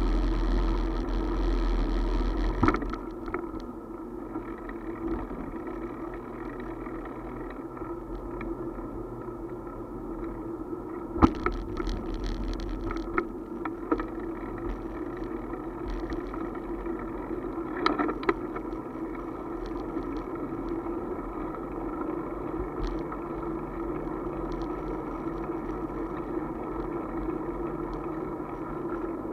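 Steady ride noise of a two-wheeler with a camera mounted on it, an even hum with a few sharp knocks. Wind rumble on the microphone is heavy at first and drops away about three seconds in.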